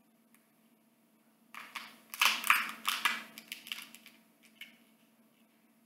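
Shell of a whole boiled blue crab being cracked and pulled apart by hand: a run of crackling snaps and crunches that starts about a second and a half in, is loudest a little after two seconds, and dies away by about five seconds.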